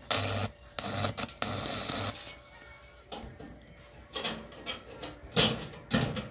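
Arc welder cutting through thin corrugated steel sheet: the arc buzzes and crackles in a few short bursts over about the first two seconds, then stops. Two sharp knocks follow near the end.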